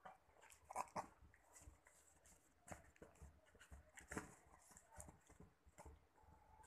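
A Shih Tzu's faint, irregular sniffs and snuffles, with louder ones about a second in and again about four seconds in.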